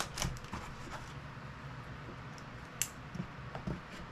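Scattered small plastic clicks and handling noises as a GoPro Karma Grip gimbal and its mount are fitted together, with one sharper click a little before three seconds in.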